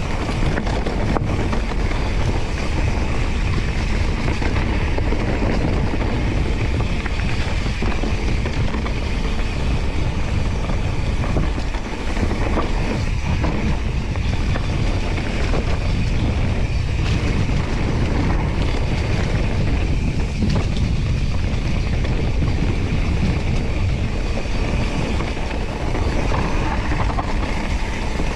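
Steady rushing noise of a mountain bike in motion on a trail: wind buffeting the microphone, with tyre roll and light rattling of the bike.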